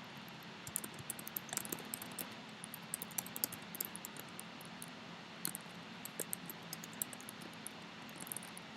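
Typing on a computer keyboard: quick, irregular key clicks starting about a second in, over a steady low hum.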